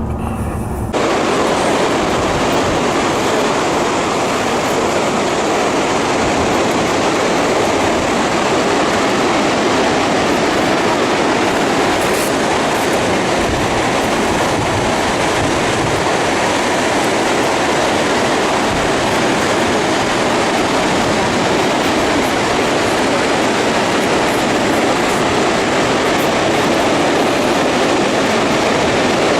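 Vøringsfossen waterfall's steady, loud roar of falling water, cutting in abruptly about a second in.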